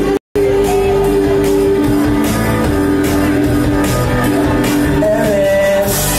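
A man singing live into a microphone over loud backing music in a club, with long held notes. The sound cuts out for a moment just after the start.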